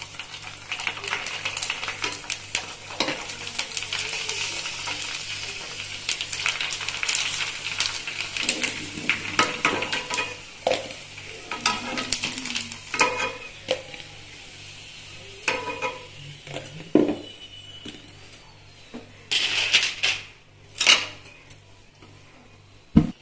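Puris deep-frying in hot oil in a metal pan: the oil sizzles, strongest over the first several seconds and then dying down, while a slotted metal spoon clinks and scrapes against the pan as the puffed puris are turned and lifted out.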